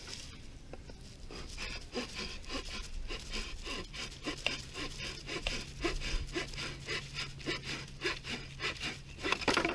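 Condor folding saw cutting through a dead branch in steady back-and-forth strokes, about three a second. Its large-toothed blade goes through the wood smoothly.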